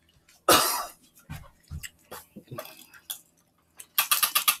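Burgers being eaten close to the microphone: a loud bite or rustle about half a second in, then scattered soft chewing clicks, and a fast run of sharp crackles near the end.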